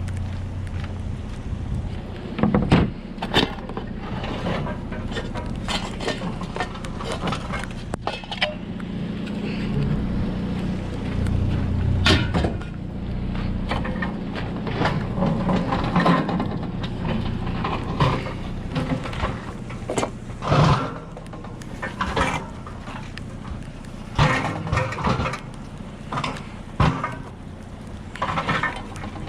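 A vehicle engine idling with a steady low hum, under irregular knocks, clanks and scrapes of something being handled and pulled.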